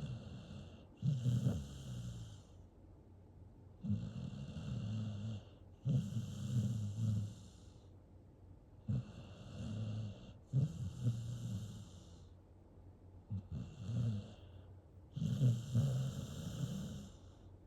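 A Staffordshire bull terrier mix puppy snoring in his sleep: snores come in pairs, a pair roughly every four to five seconds.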